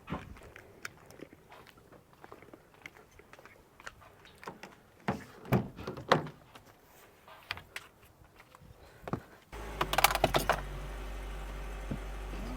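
Scattered clicks and knocks of handling. About three quarters of the way in, a steady low car-engine hum comes in suddenly with a quick rattle of clicks.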